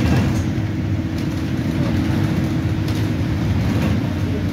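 Inside an Alexander Dennis Enviro200 single-deck bus on the move: the diesel engine and drivetrain run steadily with a low rumble and a constant hum, with a few light rattles from the saloon. The uploader finds this bus sounds quite restricted.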